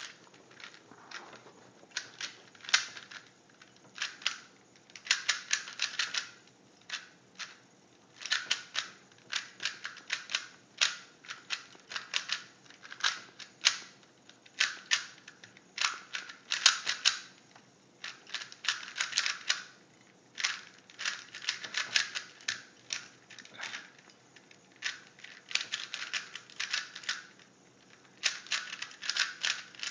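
Rubik's Cube layers being turned fast during a speed-solve: plastic clicking and clacking in quick runs, broken by short pauses.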